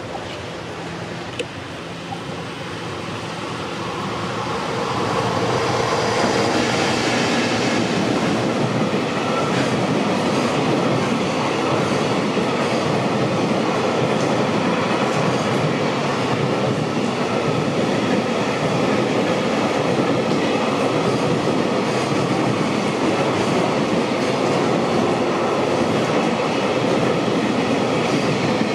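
Freight train passing close by: an EF210 electric locomotive and its long rake of container wagons rolling over the rails. The noise builds over the first few seconds, then holds as a steady run of wheel and rail noise, with one sharp click about a second and a half in.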